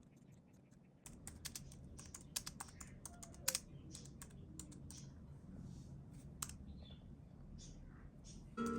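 Typing on the keys of an iPad keyboard case: a quick irregular run of light key clicks, starting about a second in.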